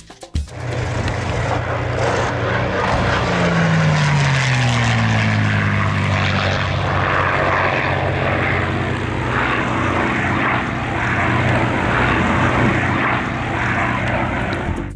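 P-51 Mustang's Packard Merlin V-12 engine running as the fighter flies by, with a propeller drone. Its pitch drops about three to five seconds in as it passes, then holds steady.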